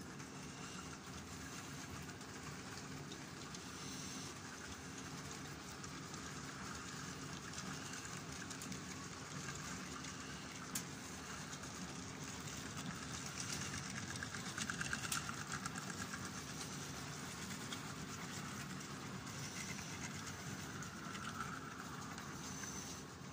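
A model freight train running past on the track: a steady hum and the rumble of its wagon wheels rolling, with a few single clicks over rail joints. It is a little louder about two-thirds of the way through.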